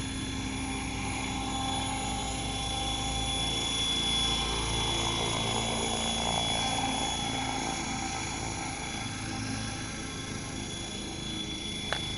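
Radio-controlled helicopter flying low and hovering, its motor and rotor blades running at a steady pitch, a little louder about a third of the way in. A sharp click near the end.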